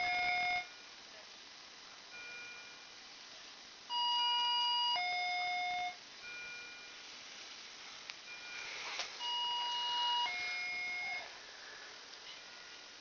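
Electronic two-note chime, a higher tone then a lower one, each held about a second, repeating about every five seconds.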